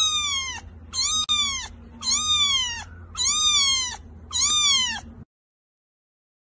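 Very young kitten meowing: five high-pitched mews about a second apart, each rising and then falling in pitch.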